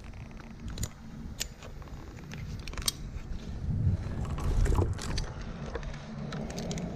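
Tree climber's gear clicking and knocking as he moves, a few sharp clicks over a low rumble that swells about four to five seconds in.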